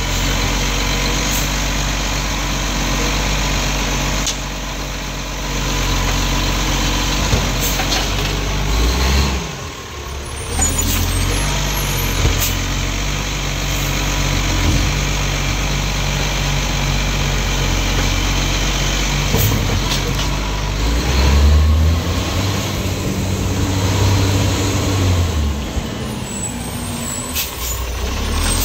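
Iveco Acco side-loader garbage truck's diesel engine running, its growl rising and falling in pitch twice as the hydraulic arm lifts a wheelie bin to empty it, with a few short knocks.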